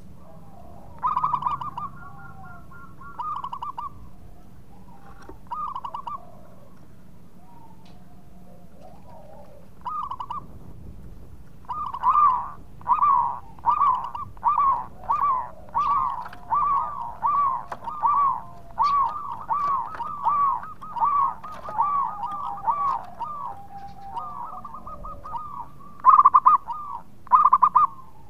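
Zebra dove singing: short, staccato cooing notes. A few scattered phrases come first, then a long, even series of coos, roughly one to two a second. A few louder notes come near the end.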